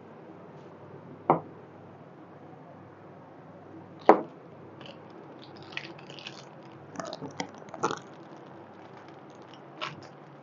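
Oil heating in an aluminium kadai, spitting with two sharp pops in the first few seconds, then a scattered run of small crackles and one more pop near the end.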